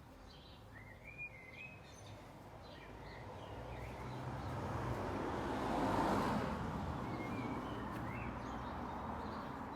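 Small birds chirping, while the noise of a passing road vehicle swells to a peak about six seconds in and then fades.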